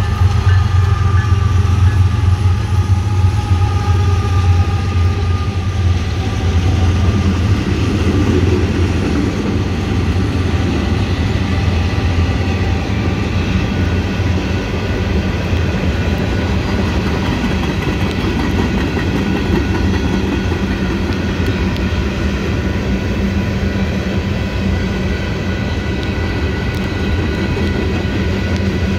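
Freight train passing: the diesel locomotives' engine hum and some falling tones fade over the first several seconds. A steady rumble and rattle of the freight cars' wheels on the rails follows as covered hoppers roll by.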